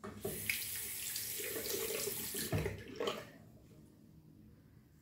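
Tap water running into a bathroom sink, turned on at once and shut off a little over three seconds later, with a short knock partway through.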